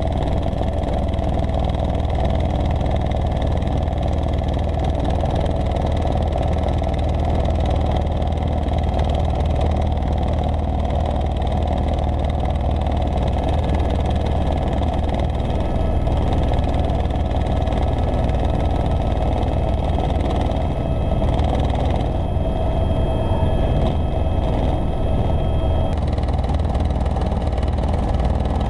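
Helicopter in flight heard from inside the cabin: a loud, steady drone of rotor and engine.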